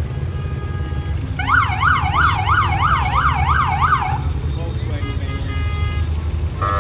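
Emergency vehicle siren in a fast up-and-down yelp, about three sweeps a second, for nearly three seconds starting over a second in. Under it runs a steady low rumble of parade vehicle engines.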